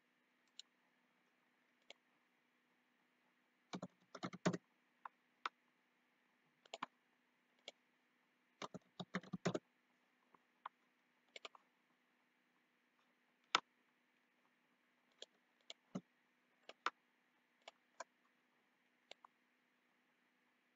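Computer mouse clicks and keyboard key presses: scattered single clicks, with two short runs of rapid keystrokes about 4 and 9 seconds in, over a faint steady hum.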